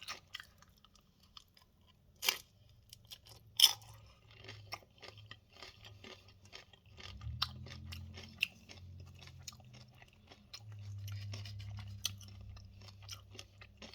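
A person chewing crunchy tortilla-chip nachos close to the microphone, with sharp crunches, the loudest two in the first four seconds. A low hum joins in during the second half.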